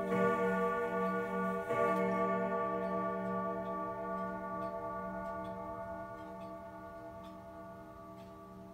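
Chain-driven triple-chime grandfather clock striking noon: a stroke at the start and another about a second and a half later. No further stroke follows, so the last one is left to ring and fade slowly while the pendulum's tick-tock comes through.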